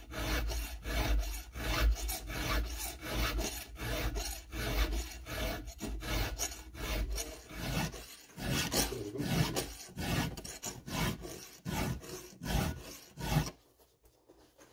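A hand file rasping across the cutters of a Husqvarna chainsaw chain clamped in a vise, in even strokes about two a second that stop about a second before the end. The chain is being sharpened after it was dulled by cutting into a rock lodged in the tree.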